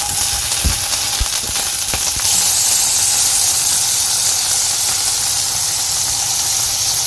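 Paneer cubes shallow-frying in a little refined oil in a kadai: a steady sizzle that gets louder about two seconds in.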